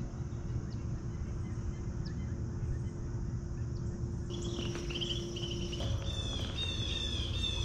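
Outdoor ambience of a steady low rumble, with a bird starting a quick, repeating series of chirps a little over halfway through.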